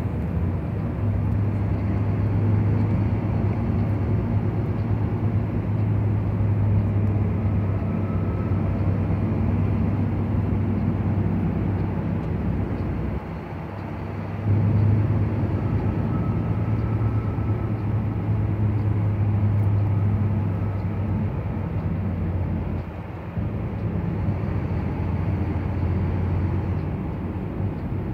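Truck engine running steadily, heard from inside the cab while driving, as a low hum over road noise. The sound drops away briefly about 13 seconds in, comes back louder, and dips again about 23 seconds in.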